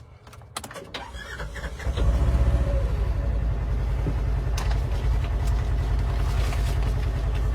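Polaris Xpedition XP1000's 1000cc engine starting about two seconds in and then idling steadily, heard from inside the closed cab. A few sharp clicks come just before it.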